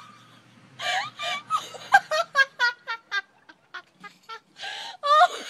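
A man laughing in a run of quick, breathy bursts that trail off and then pick up again near the end.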